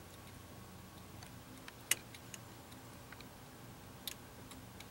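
Faint, scattered small clicks and ticks, one sharper click about two seconds in, from a hand pressing through a rag on the fuel rail's Schrader test valve to release the last of the fuel pressure.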